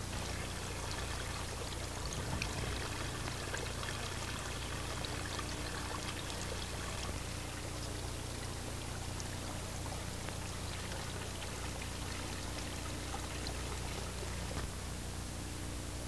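Meltwater trickling and dripping under the ice of a frozen stream, busiest in the first half, over steady hiss and a low hum from the old recording.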